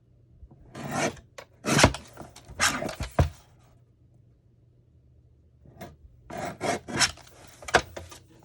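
Paper or cardstock being cut to size: two bursts of scraping strokes with sharp clicks, separated by a quiet pause of about two seconds.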